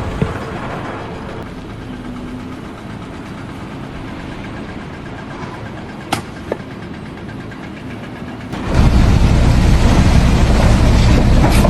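Engine noise running steadily with a few sharp clicks. About nine seconds in, a much louder, deeper engine rumble starts suddenly.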